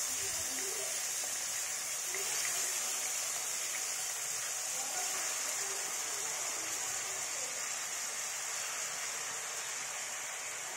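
Paneer cubes frying in hot oil with turmeric in a kadai: a steady sizzle that eases slightly as it goes on.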